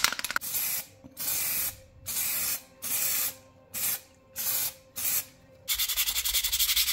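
Aerosol primer spray can hissing in a series of short bursts, about one every half second to second, as primer is sprayed onto a 3D-printed part. Near the end this gives way to a sanding sponge being rubbed quickly back and forth over a printed piece, a fast, even rasp.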